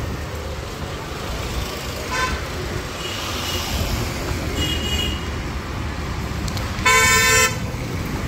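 Steady road-traffic noise with vehicle horns: a few short, fainter honks in the first five seconds, then one loud honk lasting about half a second near the end.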